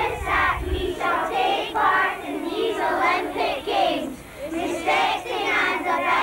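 A crowd of children's voices raised together in repeated bursts, chanting or singing as a group.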